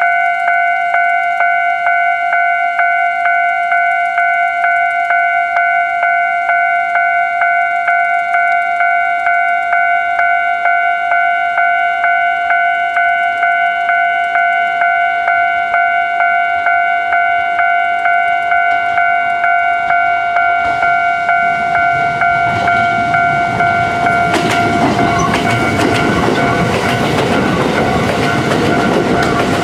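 Japanese level-crossing warning alarm dinging quickly and steadily. About two-thirds of the way in, a Kintetsu express train of 1259-series and 2800-series cars approaches and runs through the crossing, its rumble growing loudest in the last five seconds while the alarm keeps ringing.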